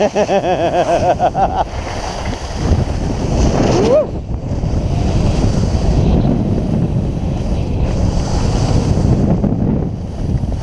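Wind buffeting a helmet-mounted action camera's microphone during a downhill ski run, mixed with skis hissing and scraping over granular spring snow. There is a short wavering tone near the start and a brief rising one about four seconds in.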